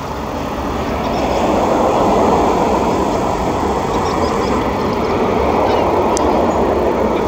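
Airbus A380 on final approach with gear down, its four Rolls-Royce Trent 900 jet engines making a steady, broad roar that grows louder over the first two seconds as the plane comes closer.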